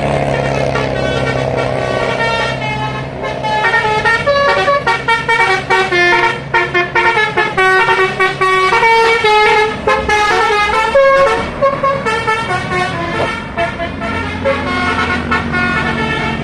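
Tour bus's basuri musical horn playing a quick tune of short stepping notes for about ten seconds, over the bus's running engine. The engine runs on alone after the tune stops, about three seconds before the end.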